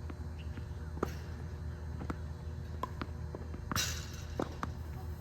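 Tennis balls from a ball machine being struck and bouncing on the court: sharp pops every half second to a second, with a short scuffing rush a little past the middle, over a steady low hum.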